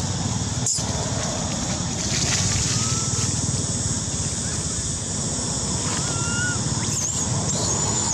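Outdoor ambience: a steady noisy rumble, with a few faint short chirps in the middle and thin high whistles near the end.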